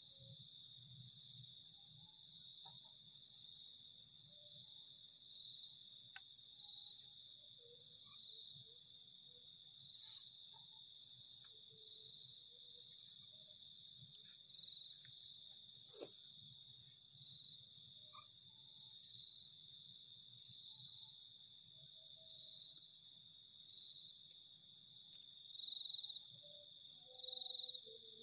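Night-time insect chorus: a steady high-pitched trilling with a regular pulse about once a second. A few faint clicks sound through it, and near the end come three short louder sounds.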